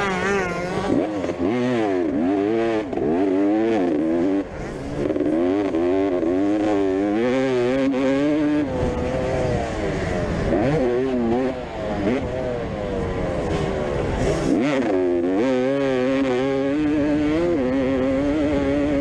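Motocross motorcycle engines racing, the pitch rising and falling over and over as the bikes rev up and shut off through the track.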